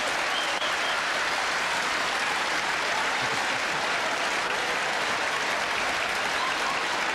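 Large theatre audience laughing and applauding, a steady dense wall of clapping and laughter.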